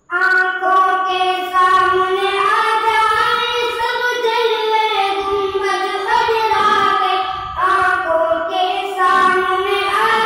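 Two boys singing a naat, the Islamic devotional song, with no instruments, in long held, ornamented notes. The singing starts at once from quiet and breaks off briefly about six and seven and a half seconds in.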